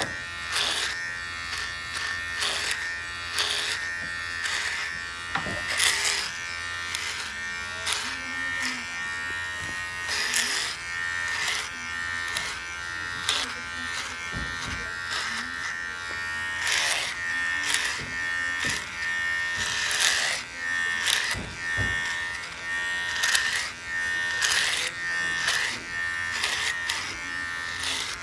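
Electric hair clippers running with a steady buzz while cutting the hair at the back of the head, with short rasps every half second or so as the blades are pushed up through the hair.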